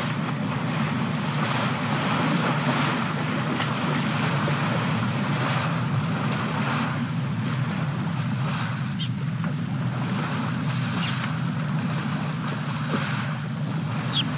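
Steady low rumble of outdoor ambience, with a few short high bird chirps in the second half.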